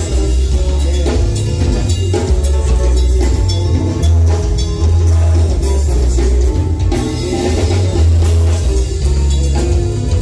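Live band playing loud dance music through a nightclub sound system: heavy bass, a drum kit beating steadily, and guitar.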